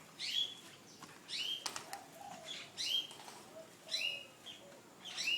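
A captive bird repeatedly giving short whistled calls, each rising sharply and then holding level, about five times roughly a second apart. There is a brief rustle about a second and a half in.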